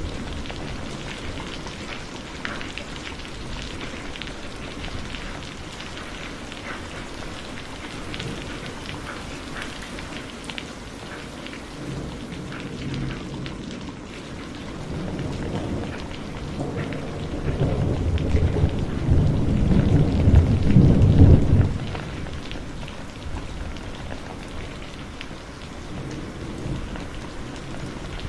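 Steady heavy rain falling, with many small drops ticking on surfaces. Past the middle a roll of thunder rumbles in, builds to its loudest for a few seconds, then fades.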